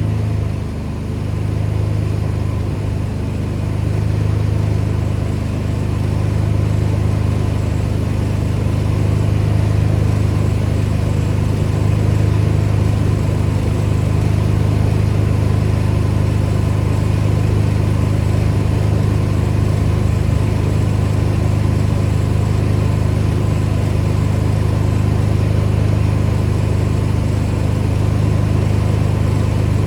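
Pressure washer's gas engine running steadily at a constant speed, a low even drone.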